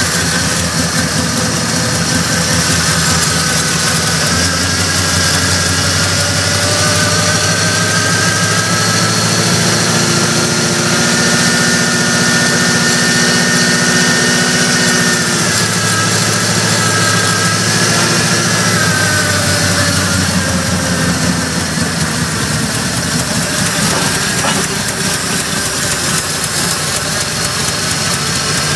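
Ford 351 Windsor V8 idling cold on a closed choke shortly after a frosty cold start, running steadily. Its idle speed lifts a little a few seconds in and settles back down about halfway through.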